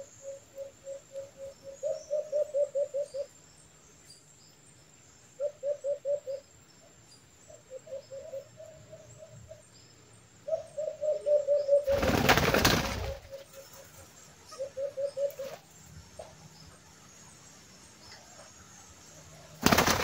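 White-eared brown doves calling: short runs of quick, low, pulsing coos repeated every few seconds, from a decoy dove luring wild ones to a cage trap. A loud burst of dove wingbeats comes about 12 seconds in, and a brief flutter at the end as a dove flies onto the perch.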